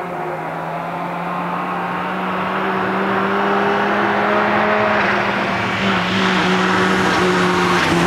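Subaru Impreza rally car's flat-four engine running hard on a snow stage, its note holding fairly steady with a drop in pitch right at the start and another about six seconds in, growing louder as the car approaches.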